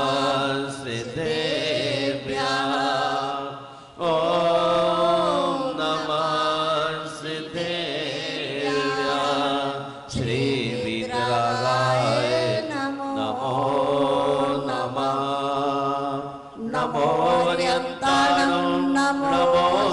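Devotional chanting of a Jain mantra, sung in long, held phrases that break off and start again about every six seconds.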